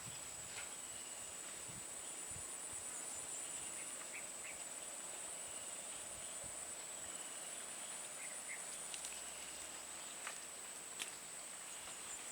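Steady high-pitched insect drone, with a few faint clicks near the end.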